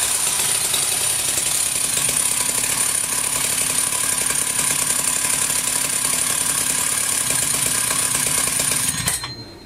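Husqvarna 61 two-stroke chainsaw running at idle with its chain turning: the clutch is engaging at idle speed, which it should not. The engine runs steadily, then cuts off about nine seconds in.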